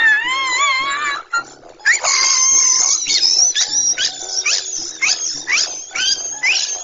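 A cartoonish laughing sound effect. It opens with a wavering, high-pitched laugh for about a second, then after a short break turns into a shrill, squealing laugh made of repeated upward-rising squeals, about two a second.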